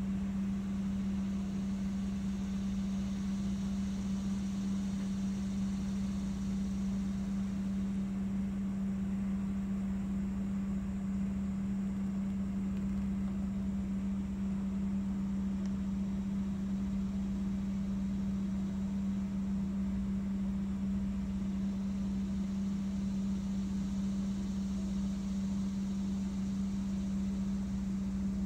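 Steady motor hum with one strong low tone, unchanging in pitch and level.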